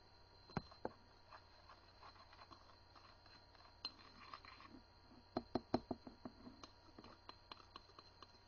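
Faint, scattered clicks and light taps of small objects being handled, with a quick run of louder clicks a little past the middle.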